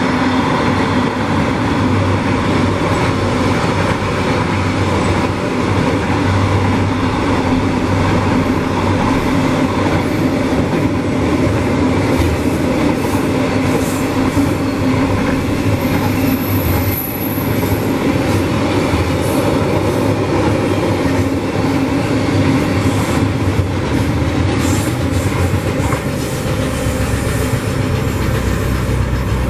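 A train running past at close range: a steady, loud rumble of wheels on the rails. There is a brief high-pitched squeal a little past halfway.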